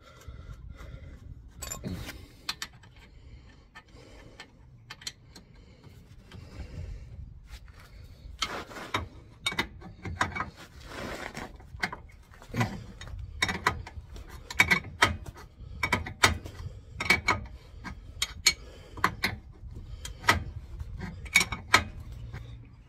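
Ratchet spanner clicking in irregular runs as a nut is tightened on the van's front suspension, with quieter handling sounds before the clicks start about eight seconds in.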